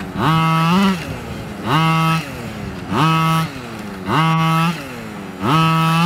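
26cc two-stroke engine of an HPI Baja 5T gas RC truck revving in five quick, evenly spaced bursts. Each burst jumps to a steady high pitch, holds for about half a second, then falls back to idle.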